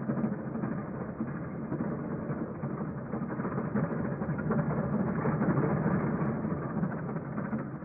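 Train carriage rumbling along steadily, heard from inside the car, fading right at the end.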